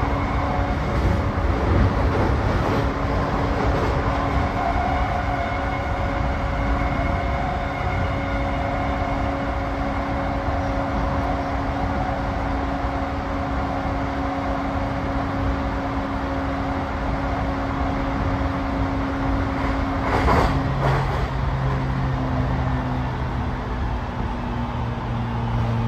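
Running noise inside a JR East E235 series commuter train car at speed: a steady rumble of wheels on rail under a constant hum. About 20 seconds in there is a brief clatter, after which the hum shifts and a lower tone comes in.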